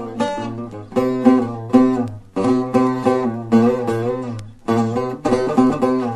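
Buzuq, the long-necked fretted lute, playing a solo improvised taqsim: runs of quick plucked notes over a steady low ringing note, with short breaks between phrases about two seconds in and again past the middle.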